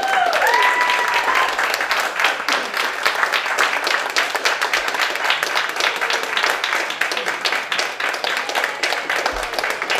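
Audience applauding, a dense patter of many hands clapping. A voice calls out briefly near the start.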